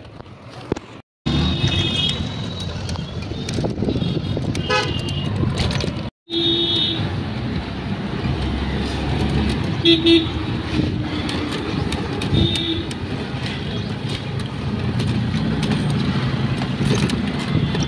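Busy city street traffic heard while riding in a rickshaw: steady engine and road noise with vehicle horns tooting several times.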